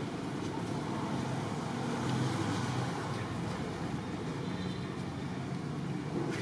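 Steady low background rumble of distant motor traffic, with no distinct events.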